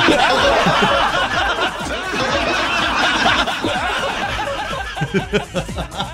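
People laughing and chuckling, trailing off into short separate chuckles near the end.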